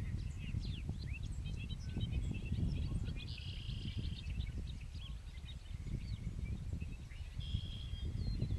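Birds singing and chirping in many short notes, with two longer held notes a few seconds apart, over a low wind rumble on the microphone.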